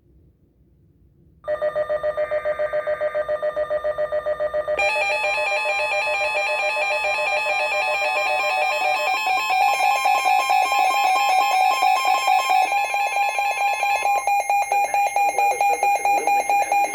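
Midland weather alert radios sounding their alert alarms: a rapidly pulsing electronic alarm starts about a second and a half in, and more alarm tones join and layer over it a few seconds later. The alarm signals a Severe Thunderstorm Warning received over NOAA Weather Radio.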